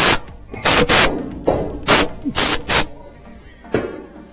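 Compressed air blown in short, loud blasts through an open dryer cabinet to clear out lint and dirt. There are about five or six blasts in the first three seconds, then it goes quieter.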